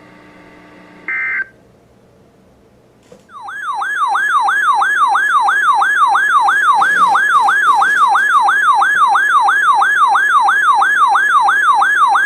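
An electronic alert siren sweeps rapidly up and down in pitch, about three sweeps a second. It starts about three seconds in and stops abruptly at the end. Before it, a short beep sounds about a second in over faint radio hiss.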